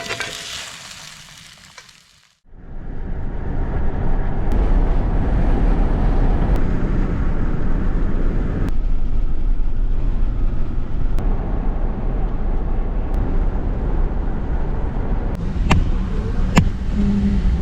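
A car driving: steady engine and road rumble heard from inside the cabin, starting abruptly about two seconds in after a fading hiss, with two sharp clicks near the end.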